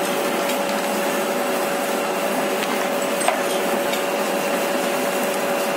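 Single-die paper plate making machine running: a steady mechanical hum with a constant whine, and one sharp click a little past three seconds in.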